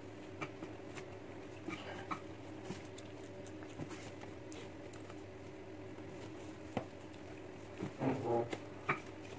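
Quiet eating sounds: faint scattered clicks of mouth and metal spoon while eating noodles, over a steady low hum. A brief louder, pitched sound comes about eight seconds in.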